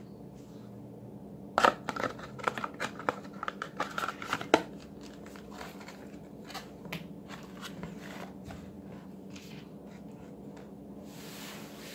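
Plastic toy police gear handled by hand: a quick run of sharp clicks and clatters for about three seconds, then softer scattered ticks and rustling.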